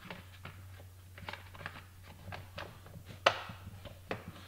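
Plastic top cover of a chainsaw being handled and fitted back onto the saw: scattered light clicks and taps, with one sharp snap about three seconds in.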